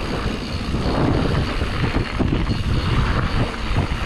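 Mountain bike descending a dirt trail at speed: wind rumbling over the microphone and tyres rolling on dirt, with frequent small knocks and rattles from bumps.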